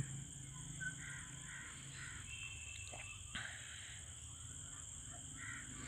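Faint outdoor ambience: a few short, distant bird calls, crow-like caws, over a steady high-pitched insect drone.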